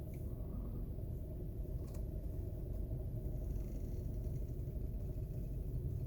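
Steady low rumble of a 2018 Volkswagen Tiguan (second generation) running, heard from inside the cabin. Over it there is a faint click about two seconds in and weak creaks from the steering wheel.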